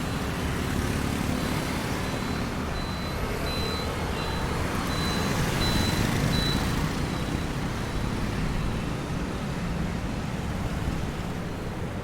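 Road traffic: a steady rumble and hiss of passing motor vehicles. A faint, high, repeated beeping runs through it from about two seconds in until about seven seconds in.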